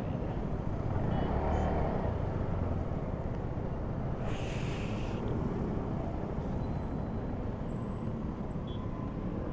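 CFMoto 250NK single-cylinder engine running as the motorcycle slows to a stop in traffic. About four seconds in, a hiss lasts about a second.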